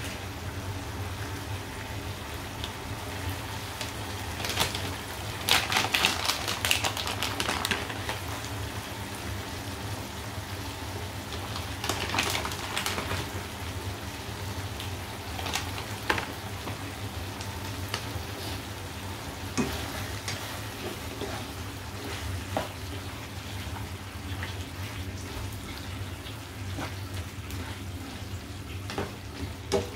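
Chicken adobo simmering and sizzling in its dark sauce in a frying pan: a steady bubbling crackle, with louder spells of spitting about five to eight seconds in and again around twelve seconds in. Short clicks from a spatula against the pan are scattered through the later part.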